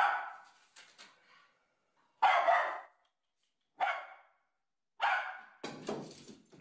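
A small dog barking in short, separate barks, about five in all, a second or so apart.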